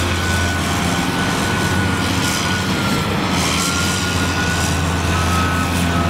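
Caterpillar hydraulic excavator running steadily: a low diesel drone with a thin high whine that wavers slowly in pitch.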